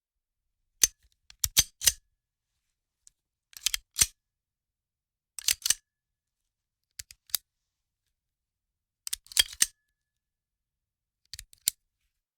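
Handgun handling: six short groups of sharp clicks and clacks, spaced about two seconds apart, with silence between.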